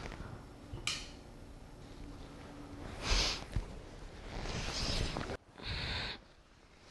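A bedside lamp switch clicks about a second in, then bedcovers rustle in two swells as she settles into bed, followed by a short breathy hiss near the end.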